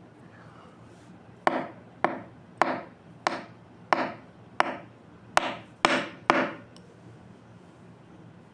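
Nine sharp knocks on a hard surface, about one every two-thirds of a second, the last two coming a little closer together. Each knock rings briefly after the strike.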